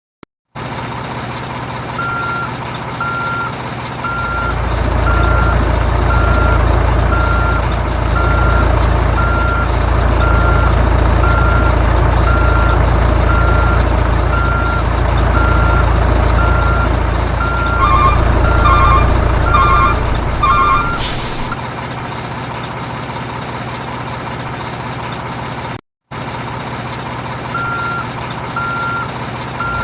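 Reversing beeps from an RC toy truck's sound module, about one beep a second, over a low steady motor drone. Near the two-thirds mark a second, faster double-beep pattern joins for a few seconds, then the drone drops away and the beeps pause before coming back near the end.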